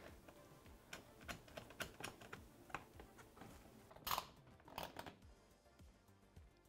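Faint, scattered small clicks and ticks of M6 bolt, washer and nylock nut hardware being fitted by gloved hand into a loop clamp, with two louder clicks about four and five seconds in, then stopping.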